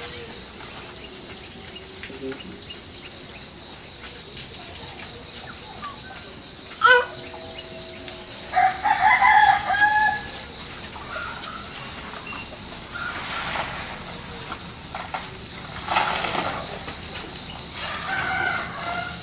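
Insects chirring steadily in a fast, pulsing high buzz, with a rooster crowing a little before halfway through.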